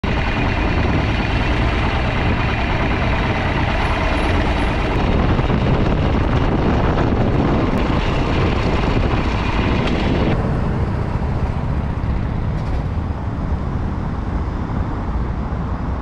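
Cruiser motorcycle being ridden, its engine running steadily under wind and road noise. The high hiss drops away about ten seconds in.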